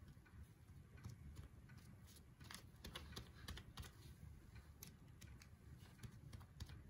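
Faint, irregular taps of fingertips dabbing paint onto a sheet of paper laid on a tabletop, busiest in the middle.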